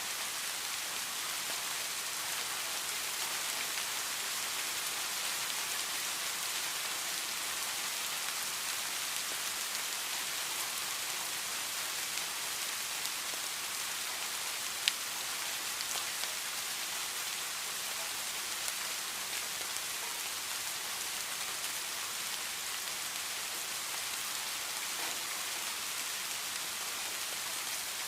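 Heavy rain falling steadily, an even hiss of drops on surfaces, with one sharp tap about halfway through.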